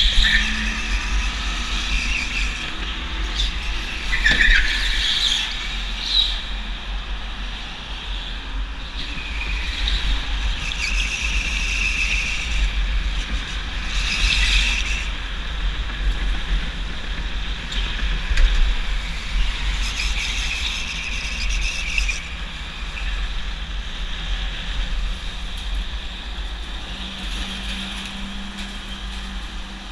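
Go-kart running hard around an indoor track, recorded on board: a constant low rumble from the kart, with its tyres squealing in spells of a second or two through the corners every few seconds.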